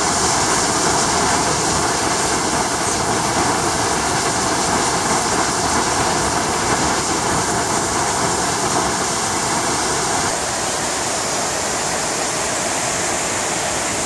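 Waterfall cascading down a rock face into a pool: a steady, unbroken rush of falling water.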